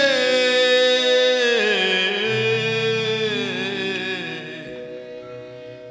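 Devotional bhajan music: a long held sung note over sustained accompaniment, growing quieter toward the end.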